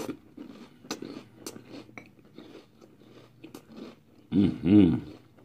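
Chewing a mouthful of crunchy Pop-Tarts cereal in milk, with small crunches scattered throughout. About four and a half seconds in, a loud hummed "mm-hmm" of approval.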